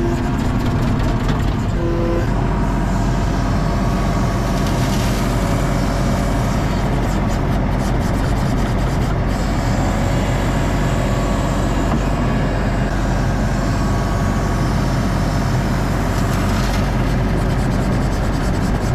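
ASV RT-40 compact track loader's diesel engine running steadily, heard from inside the operator's cab, as the machine carries sand and tips its bucket.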